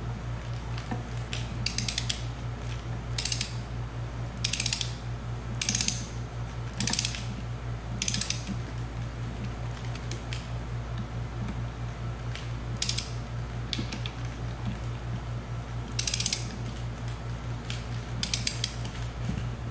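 Hand socket ratchet clicking in about nine short bursts with pauses between, as the cap bolts of a connecting rod are run down onto a VW crankshaft journal. A steady low hum runs underneath.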